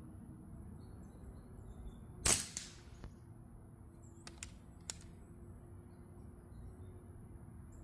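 A single airgun shot a little over two seconds in, sharp and brief, followed about two seconds later by three faint clicks.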